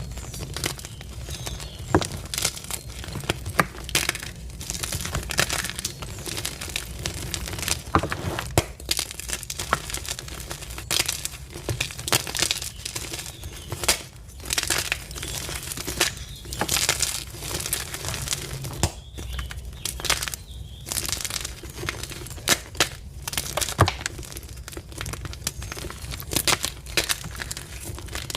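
Dyed gym chalk blocks being crushed, giving a continuous, irregular run of crunches and crumbling crackles.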